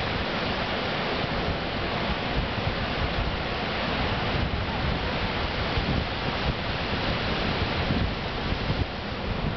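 Ocean surf breaking and washing up over the sand at the water's edge, a steady rush of water, with wind buffeting the microphone.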